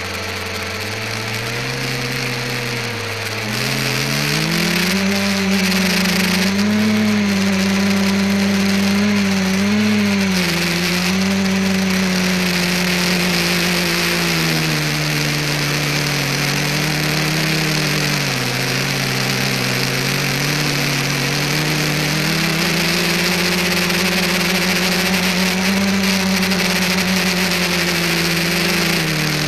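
Electric motors and propellers of an ETFD2 multicopter, picked up by its onboard camera: a steady buzzing hum over a hiss. The hum climbs in pitch about four seconds in, then wavers up and down and dips twice as the throttle changes.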